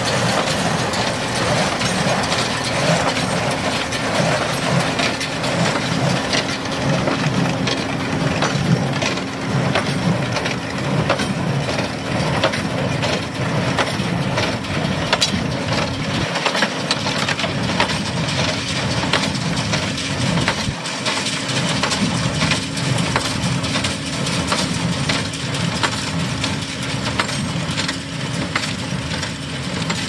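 New Holland small square baler running: a steady rhythmic clatter of the baler's mechanism with hay crunching as it is picked up and packed, over the steady hum of the tractor that pulls it.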